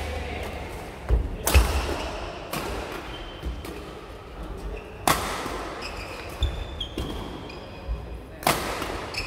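Badminton rackets striking the shuttlecock in a hard-hitting rally: sharp cracks like gunshots, four of them about one to three seconds apart, the loudest about one and a half seconds in, each echoing in the hall. Between them come footfalls thumping on the wooden court and brief shoe squeaks.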